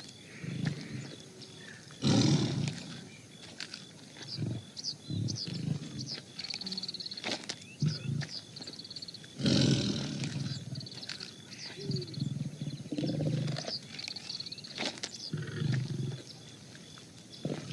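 Tiger growling in a series of low calls, the two loudest about two seconds in and around ten seconds in.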